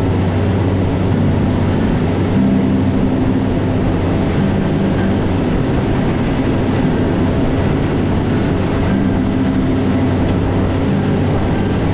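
A boat's outboard engines running steadily at high-speed trolling pace, a constant low drone over rushing water and wind.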